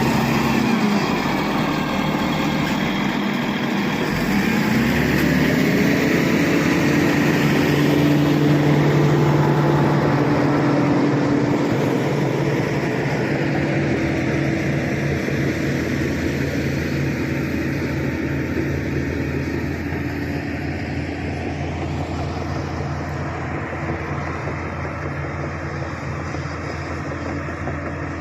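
SD16 crawler bulldozer's diesel engine working under load. Its pitch dips twice in the first few seconds, then holds steady and slowly fades toward the end.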